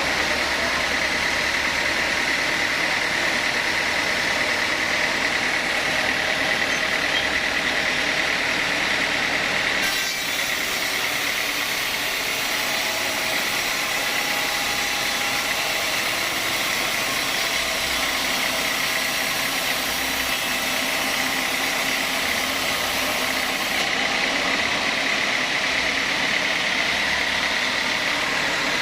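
Sawmill machinery running steadily with a high whine, as a teak log is milled. From about ten seconds in until near the end, an extra high hiss joins it.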